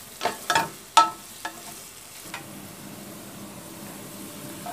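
Sliced onions sizzling in ghee in a nonstick pan as they brown, stirred with a spatula: a handful of sharp knocks and scrapes of the spatula against the pan in the first two and a half seconds, then a steady sizzle.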